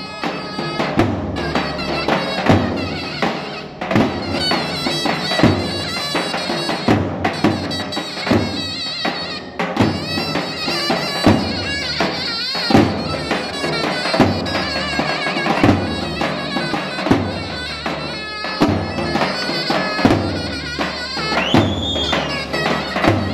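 Zurna playing a shrill, wavering folk melody over two davul drums, which beat a steady rhythm of heavy mallet strokes and lighter stick taps.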